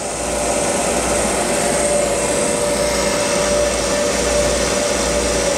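Kellenberger 1000U universal cylindrical grinder running: a steady machine whir with one steady humming tone through it, swelling slightly in the first half-second, from the spinning grinding spindle and the variable-speed workhead.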